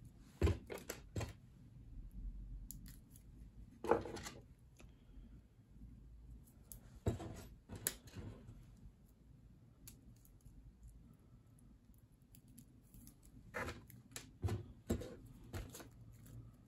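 Plastic cable ties and small tools being handled and sorted in a toolbox: scattered clicks and light clatters in several short clusters.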